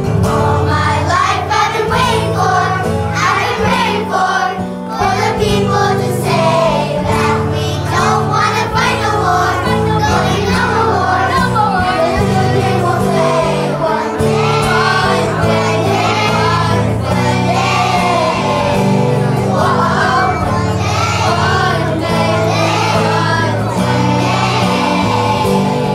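A children's choir singing a song together over instrumental accompaniment.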